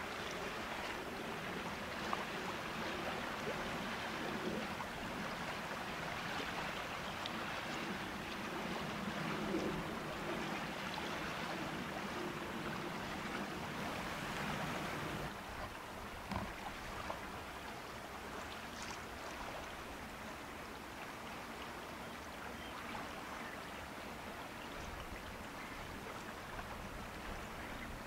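Steady rushing wash of water and wind along a tidal river, with a low, distant ship's engine drone in the first half that fades about halfway through as the overall sound drops a little.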